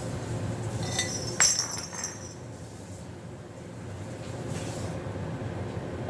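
Dishes clinking while being washed: a light click about a second in, then one sharp, ringing clink of glass or china, over a steady low background rush.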